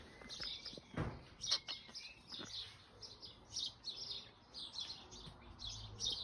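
Small wild birds chirping steadily, several quick high chirps a second, with a soft knock about a second in.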